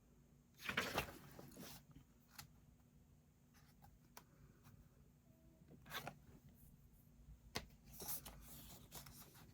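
Book page being turned: brief paper rustles about a second in and again near the end, with a few light clicks in between.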